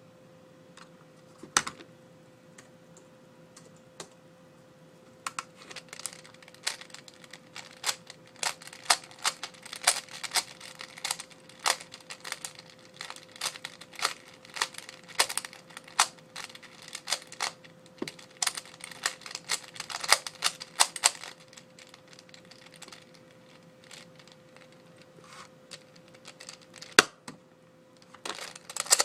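Type C-II 3x3 speedcube being turned by hand: quick plastic clicks of the layers in uneven runs, a few at first, then a long dense run, a pause of several seconds, and more clicks near the end. A faint steady hum lies underneath.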